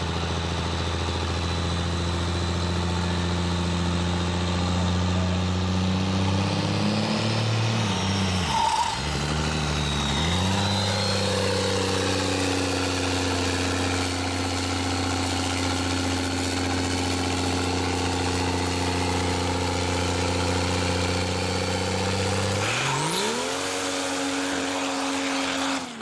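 Diesel pickup engine held at high revs during a burnout, a steady drone with a thin high whine over it. The revs dip sharply and recover about eight seconds in, and rise again near the end.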